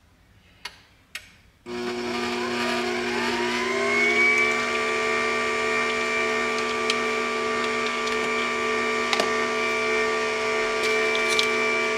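Two short clicks, then a horizontal slow juicer's motor starts up about a second and a half in. Its whine rises in pitch over a couple of seconds and settles into a steady hum: the juicer is being restarted in forward after being run in reverse to clear a jam.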